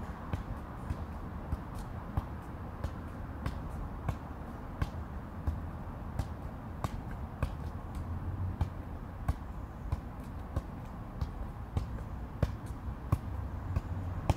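Soccer ball being juggled: short thumps of the ball against foot and knee, irregular, about one or two a second, over a steady low rumble.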